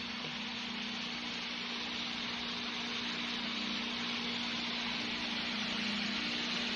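Steady machinery noise: a constant low hum under an even, broad hiss.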